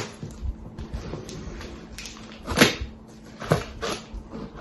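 Hands prying at a large cardboard shipping box to open it: scattered knocks and scrapes, with one louder sharp crack about two and a half seconds in.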